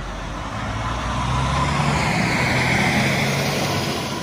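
A large road vehicle's engine drives past close by, growing louder to a peak about three seconds in and then fading.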